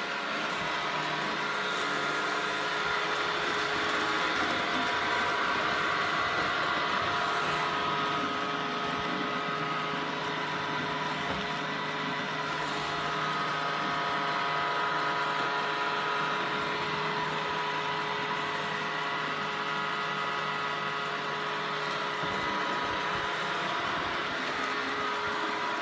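Samsung Navibot SR8828 robot vacuum cleaner running: a steady motor whir with several whining tones over a rushing noise, swelling and easing slightly in loudness.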